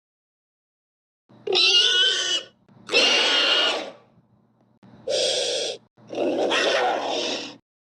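Four separate animal calls used as a sound effect for a prehistoric creature, each lasting about a second, with short silences between them.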